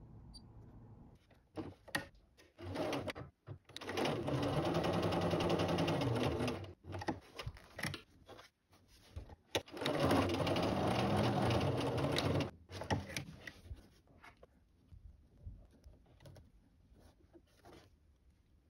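Computerized sewing machine stitching in two runs of about two and a half seconds each, one about four seconds in and one about ten seconds in, at a long 5 mm basting stitch length. Soft ticks and fabric rustling from handling the fabric come between and after the runs.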